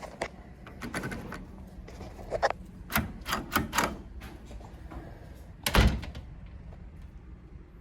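Door and lock hardware being worked by hand: scattered sharp clicks and knocks, a quick run of them about three to four seconds in, then one heavy thump shortly before six seconds.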